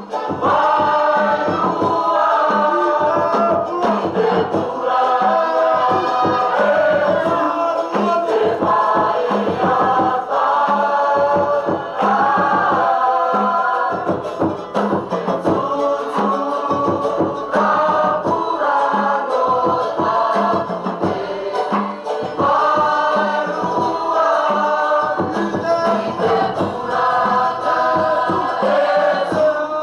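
Massed voices singing a Cook Islands song in chorus, with a steady drum beat under it.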